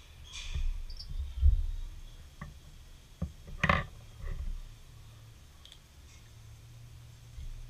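Scattered light clicks and knocks of drawing tools being handled on a desk as a pencil is put down and a Sharpie marker is taken up. There is a dull bump about one and a half seconds in, and the sharpest click comes a little before four seconds in.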